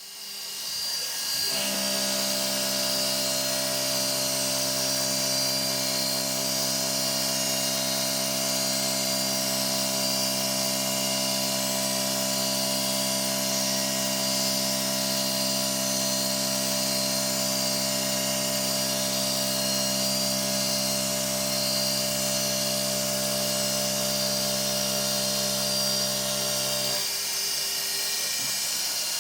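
DIY CNC mill running: a high-speed spindle whine with the steady tone of the axis stepper motors during a feed. The motor tones settle into a new steady pitch about a second and a half in and change again near the end.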